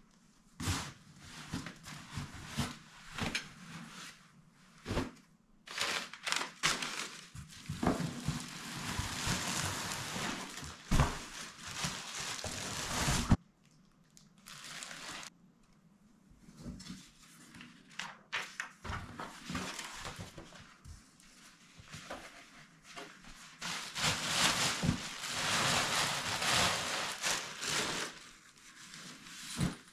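Packaging being handled: rustling and crinkling of plastic wrap and canvas in long stretches, the loudest ending abruptly about thirteen seconds in, with scattered thumps as bundled tent parts are set down.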